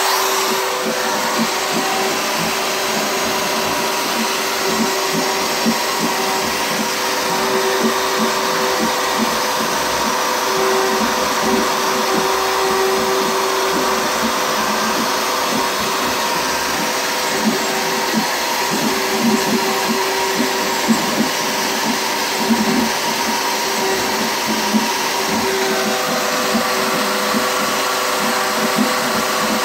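Woodworking router mounted as the spindle of a CNC router, running steadily while it cuts letters into a wooden board: a loud, even motor whine and hiss, with small irregular ticks and crackles from the bit in the wood.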